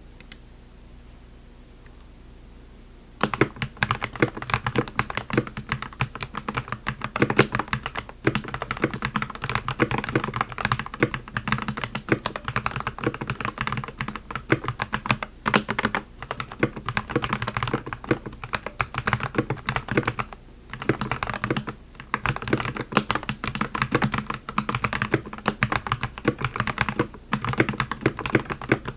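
Continuous fast typing on a stock Keychron V5 mechanical keyboard: a dense, irregular clatter of key clicks, with short pauses between bursts. The typing starts about three seconds in, after a faint steady background hum.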